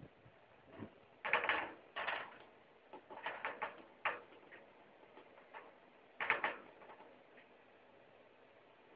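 Animal claws clicking and scrabbling on a hard floor, in short irregular clusters of quick clicks with pauses between.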